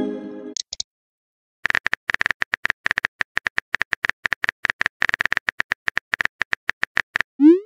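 Simulated phone-keyboard typing clicks from a texting-story app: a rapid run of short, even taps for about five seconds as a message is typed out. It opens on the fading tail of a chime and ends near the close with a short rising swoosh.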